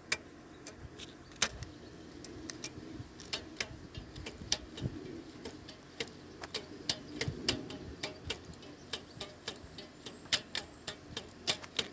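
Taut fishing line on the rod plucked with a finger like a guitar string: a run of irregular sharp clicks, a few a second, each with a faint low twang, sounding like a sitar.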